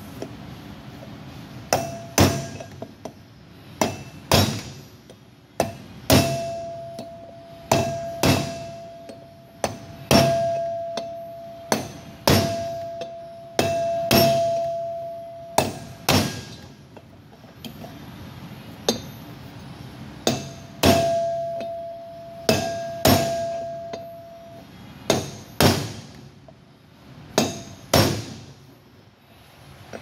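Hammer blows on a Toro 3505-D steel wheel hub, about two dozen sharp strikes at an irregular pace, often in pairs. Many leave a clear metallic ring that hangs on between blows, as the wheel studs are driven in the hub.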